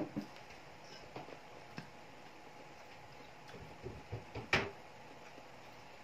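Spoon clicking and scraping against a ceramic bowl and plate as fried rice is served: a few light clicks and knocks spread out, the loudest about four and a half seconds in.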